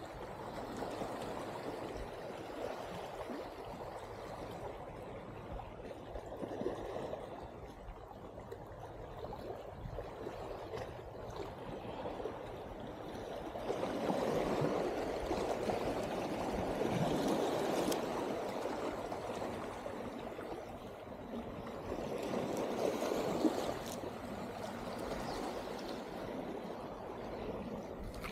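Water lapping and sloshing, swelling and fading in slow surges, loudest around the middle of the stretch.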